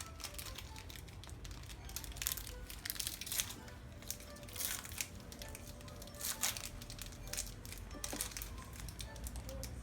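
Plastic KitKat wrapper being torn open and crinkled, in irregular crackles.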